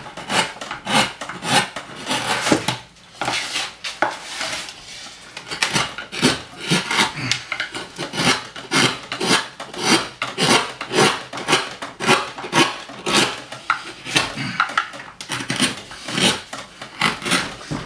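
Hand gouge cutting into a woodcut relief block: a run of short, scraping strokes at about two a second as chips are carved out of the wood.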